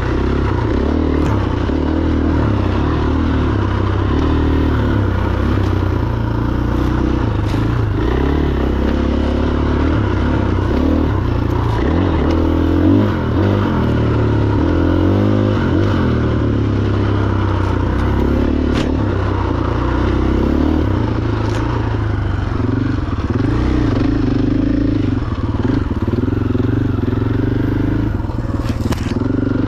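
Husqvarna FE501 single-cylinder four-stroke enduro motorcycle being ridden on a trail, its engine note rising and falling with the throttle, with a few short knocks and clatters along the way.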